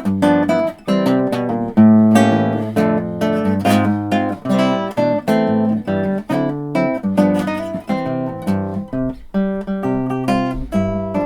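Solo acoustic guitar playing an instrumental arrangement of a New Year song, with melody and bass notes plucked together in a steady rhythm.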